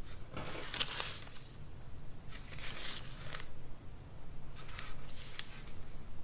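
A pointed white tool scraping as it is drawn through soft nerikiri bean paste, scoring lines: three soft, hissy strokes about a second each.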